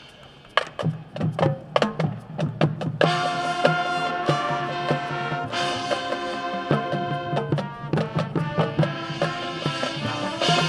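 High school marching band playing: the drumline starts with sharp accented hits about half a second in, then the brass comes in with loud held chords around three seconds in, and the drum accents carry on under them.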